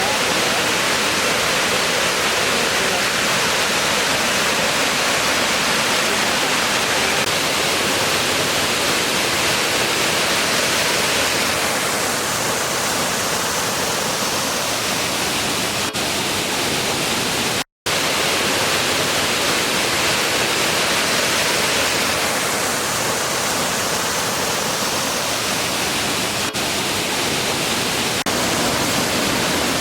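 Waterfall running: a steady rush of falling water, cut off for a split second about 18 seconds in.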